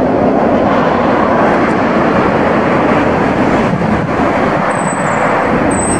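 Steady, loud city traffic noise: vehicles running along a wide street. A thin high squeal comes in near the end.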